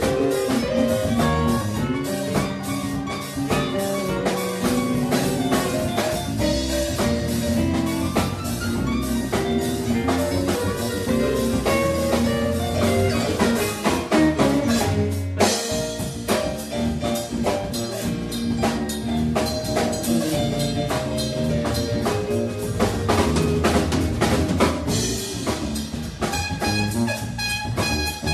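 Live band of trumpet, electric guitar, bass guitar and drum kit playing an upbeat funk-jazz tune, with a short break in the low end about halfway through.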